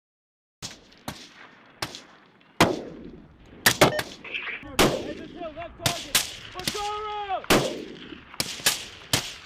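Small-arms gunfire: about a dozen single shots fired at irregular intervals, each with a short echo.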